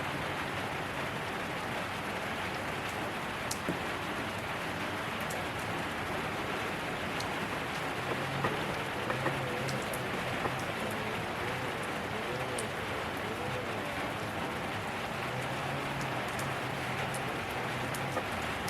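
Steady rain falling on surfaces, an even hiss with scattered sharp drip and drop hits.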